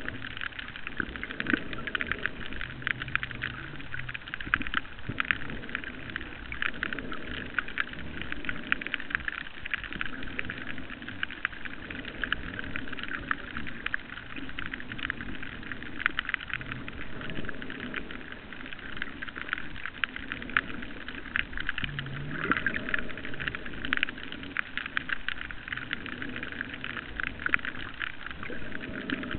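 Underwater reef ambience: a dense, steady crackle of tiny clicks from snapping shrimp, with a muffled low rushing that swells and fades every few seconds.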